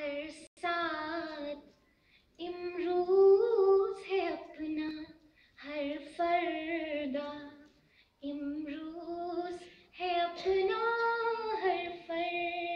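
A woman singing an Urdu ghazal unaccompanied, in long held, ornamented phrases with short breaths between them.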